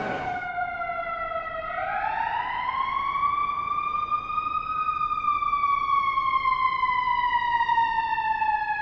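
Emergency vehicle siren passing by, loud and reverberant: one slow wail that dips at first, climbs over a few seconds, then slowly falls in pitch.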